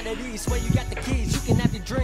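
Background hip hop music: a rapped vocal over a steady beat.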